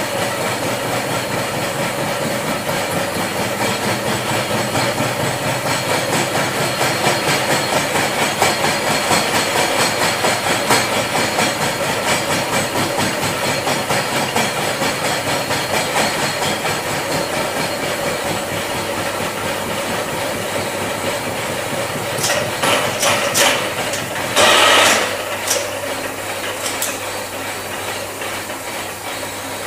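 Vertical milling machine face-milling the surface of a metal workpiece: a steady machine run with the cutter chattering through the metal. About three quarters of the way through come a few sharp clicks and a brief loud hiss, after which the cutting sound lessens and a steady hum remains.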